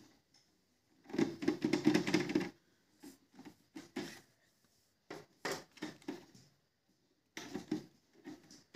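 Hands handling the plastic body of an Epson L3110 ink tank printer: about a second and a half of scraping and rattling, then several short groups of plastic clicks and knocks as its lid and ink tank cover are worked.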